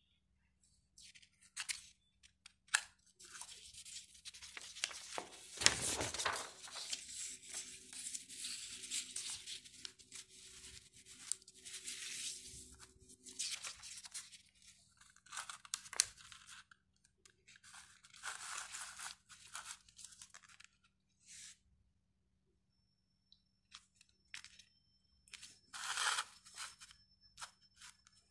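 Sheets of paper being handled and turned over to a fresh page, rustling and crinkling in irregular spells through most of the first twenty seconds and again near the end, over a faint steady hum.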